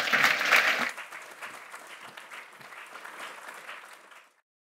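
Audience applauding, loudest in the first second and then settling lower before cutting off suddenly near the end.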